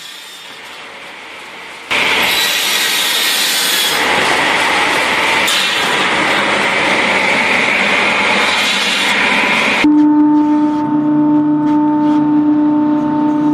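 Wood-processing machinery: a loud, harsh noise of wood being cut or chipped starts suddenly about two seconds in, then cuts off abruptly near the end and gives way to a steady, droning machine hum.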